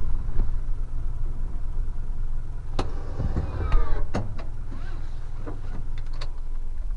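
Delivery truck's engine idling with a steady low rumble, heard from the cab, with a scatter of sharp clicks and knocks in the middle.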